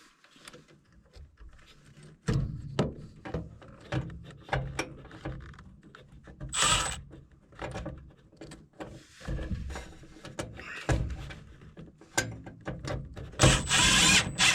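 Handling noises from work on a furnace: a string of clicks, knocks and low thuds, with a burst of rustling or scraping about halfway through and a longer one near the end.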